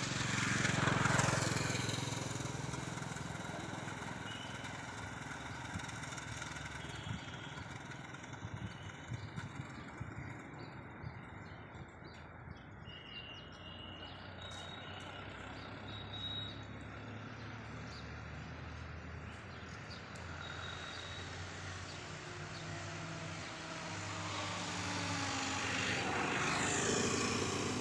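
Motor vehicles passing close by, one about a second in and another near the end whose engine note falls as it goes past, over a steady low engine hum of traffic. A few short, high bird chirps sound in the middle.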